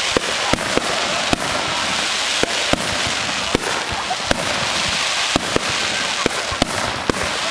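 Fireworks going off: a continuous crackle with sharp bangs at irregular intervals, two or three a second.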